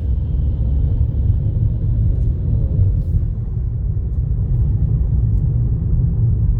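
Steady low rumble of a moving car, road and engine noise.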